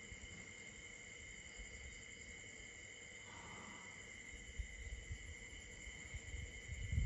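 Night insect chorus: crickets chirring steadily at several high pitches. Low rumbles and thumps join in during the last few seconds.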